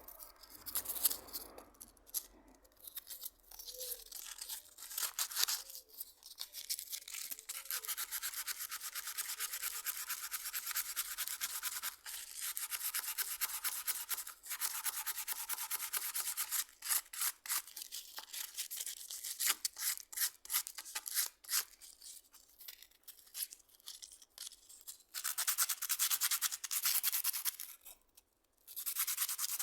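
Rapid back-and-forth abrasive scrubbing strokes on a hard surface, in long runs broken by short pauses.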